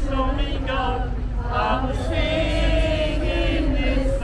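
A group of voices singing together in a chant-like sing-song, with one long note held through the second half, over a steady low rumble.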